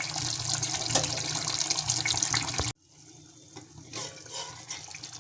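Chicken korma masala sizzling and crackling in hot oil in a pan, with the oil separated from the spice paste: the sign that the masala is fully fried. The sizzle cuts off abruptly about two and a half seconds in and goes on much quieter.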